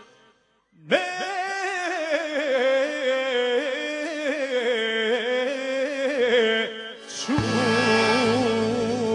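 After a near-silent gap of under a second, a solo piano accordion plays a slow, free-time melody with a wavering pitch. About seven seconds in, the full band comes in with bass under it.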